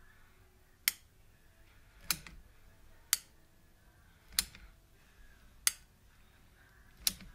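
Manual caulking gun's trigger clicking six times, about once every 1.2 s, as each squeeze drives the plunger to push out a bead of window adhesive.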